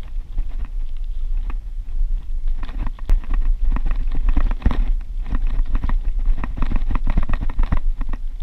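Old Schwinn mountain bike ridden over a rough crushed-rock trail: tyres crunching on loose stone and the bike rattling over the bumps in a dense, irregular clatter. Wind rumbles on the microphone throughout.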